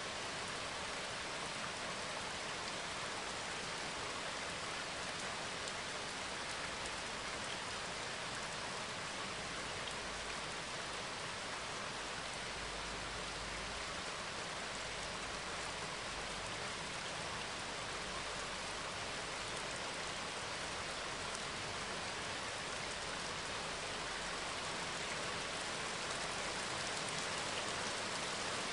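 Steady rain, an even hiss with no separate drops or strokes standing out.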